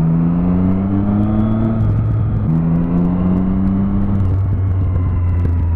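Motorcycle engine accelerating, its pitch rising, then dropping at a gear change about two seconds in. It holds a steady pitch before easing off near the end, over a steady low rumble.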